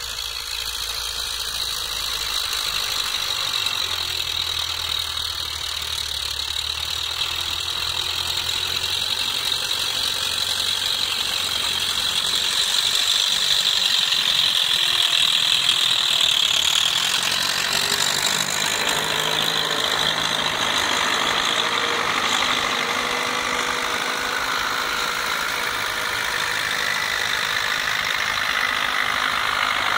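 Vintage diesel farm tractors running under load as they pull ploughs through soil, a steady engine note with mechanical rattle, a little louder about halfway through as one passes close.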